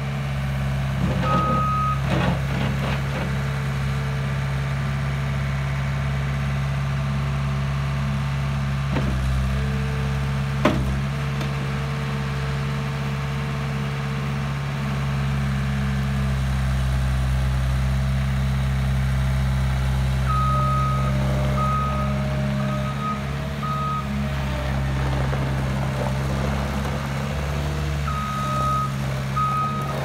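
Caterpillar 242 skid steer loader's diesel engine running steadily under work, with its reversing alarm beeping: one beep about a second in, a run of short beeps from about twenty seconds in, and two more near the end. A single sharp knock about ten and a half seconds in.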